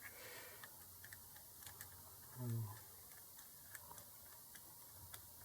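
Faint, irregular light clicks, a few scattered ticks of metal probe tips touching a circuit board while checking a ground connection for continuity.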